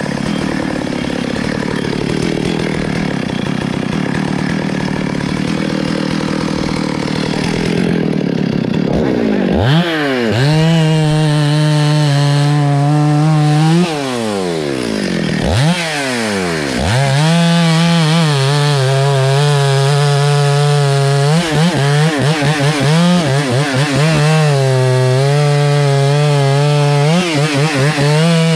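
Gasoline chainsaw sawing through a felled tree trunk. The engine runs at lower speed at first, then revs up sharply to full throttle about ten seconds in. The revs drop and climb again twice around the middle, then hold high with brief stutters of the throttle later on.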